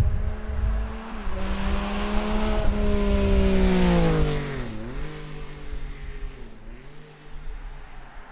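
Yamaha XSR900 with an inline-three engine and a Hindle EVO megaphone exhaust accelerating past, its engine note climbing in pitch, loudest about four seconds in, then dropping sharply twice as it pulls away and fades.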